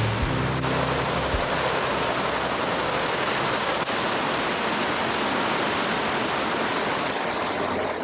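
Powerful waterfall in heavy flow: a steady, even rush of falling water.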